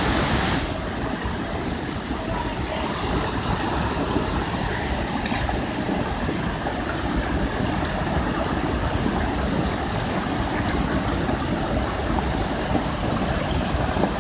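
Water rushing steadily over a small rock cascade into a pool, a constant even noise close to the microphone.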